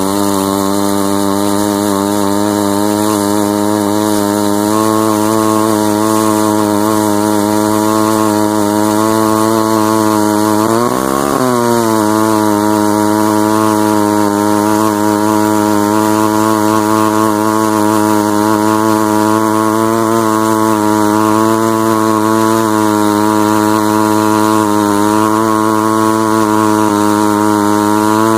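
Sachs Dolmar KMS-4 chainsaw's single-rotor 58 cc Wankel rotary engine running at high speed under load while the chain cuts through a log. The engine's pitch holds steady, swings briefly about eleven seconds in, and climbs near the end.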